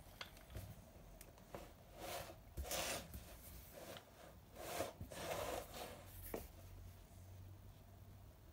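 A bookbinder's brass roll pressed and run along goatskin leather in blind tooling: two faint rubbing strokes, each about a second long, around two and five seconds in, with a few light clicks between them.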